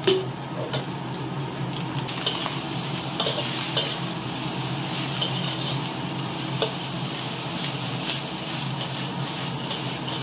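Sliced celery tipped into a hot wok with shrimp, then sizzling as a metal spatula stir-fries it, clinking and scraping against the wok. The sizzle grows louder about two seconds in.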